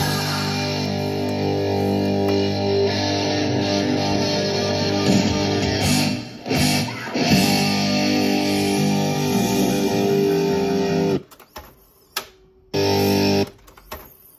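Guitar-led music playing from a Sanyo M-X650K boombox's cassette deck through its built-in speakers. It breaks off about eleven seconds in, comes back for a moment about two seconds later, then stops.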